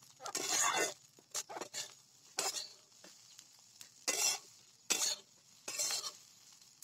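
Flat metal spatula stirring and scraping rice around a metal kadhai, in about six short scraping strokes, roughly one a second.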